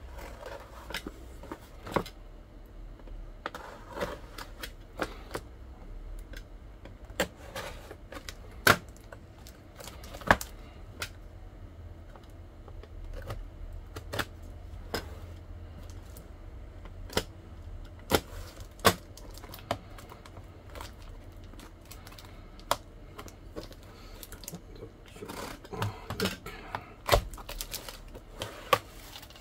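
Utility knife cutting and picking at packing tape and plastic wrap on a parcel: irregular sharp clicks and taps, with bits of plastic crinkling, busiest near the end.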